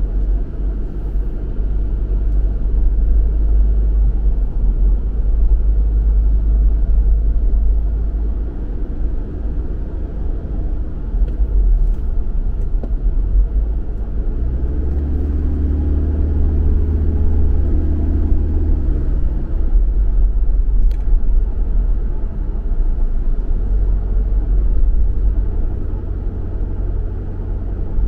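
Car driving on a city road: a steady low rumble of engine and tyre noise. About halfway in, a deeper droning hum with a few steady tones swells for about five seconds, then falls back.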